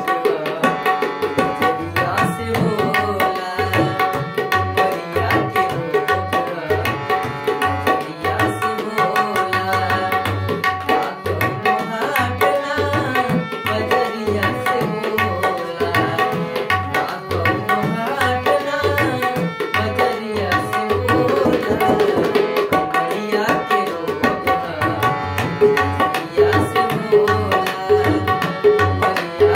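Tabla playing a steady rhythm, with regular low bass strokes from the larger bayan drum, under a harmonium melody of held reed notes.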